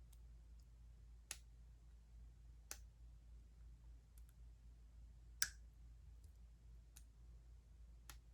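Faint, scattered metallic clicks, about one a second, of a short hook pick and tension wrench working the pins of a cheap padlock; one click about five seconds in stands out.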